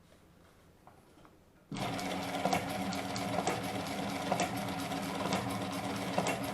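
Faint room tone, then about two seconds in the NMD-38 industrial shell-stitch sewing machine starts running: a steady mechanical clatter with a louder stroke about once a second, each one a slow, several-step shell stitch.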